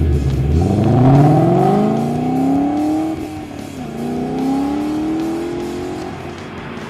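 Mustang GT's 5.0-litre Coyote V8, fitted with a cold air intake and throttle body, accelerating hard from a standstill. The engine note climbs, drops sharply at a gear change about four seconds in, then climbs again as the car pulls away and fades.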